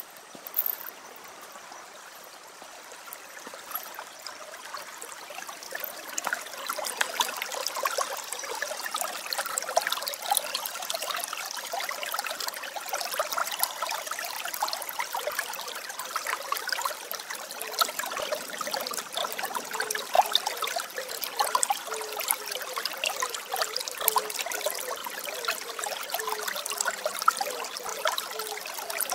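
Water trickling and splashing steadily in an aquarium penguin enclosure, a dense crackle that grows louder about six seconds in.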